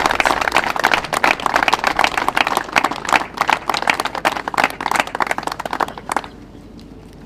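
Applause from a small seated audience: many quick overlapping hand claps, stopping abruptly about six seconds in.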